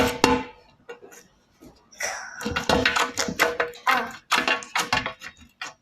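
Music with a quick percussive beat over a steady held tone, starting about two and a half seconds in after a couple of sharp clicks.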